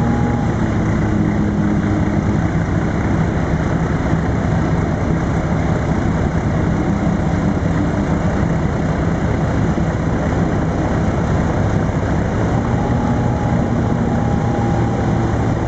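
Offshore racing powerboat running at speed alongside a chase boat: a loud, steady engine drone whose tones drift slightly in pitch, over the rush of water and wind.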